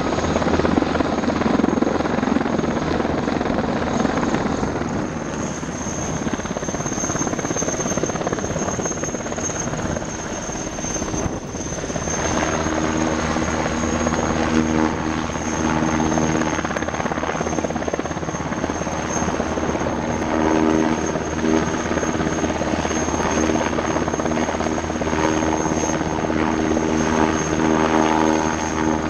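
Military helicopters running steadily: an NH90 hovering, then a Eurocopter Tiger flying close, with a high turbine whine throughout over the rotor noise. After a brief dip about halfway through, a stacked rotor hum comes through more strongly.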